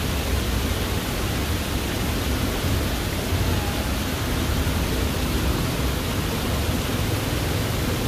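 Water cascading down a stone-wall fountain in a steady, even rush.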